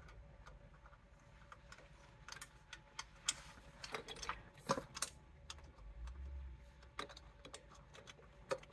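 Light, irregular metal clicks and taps as a stainless steel turbo pipe, its flange gasket and bolts are handled and fitted by hand.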